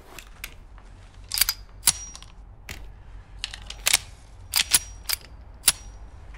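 Semi-automatic pistol being handled and checked: a string of about ten sharp metallic clicks and clacks from its action, some in quick pairs.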